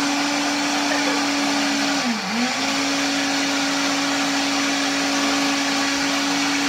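Electric blender running steadily, its motor tone dipping briefly in pitch about two seconds in and then recovering.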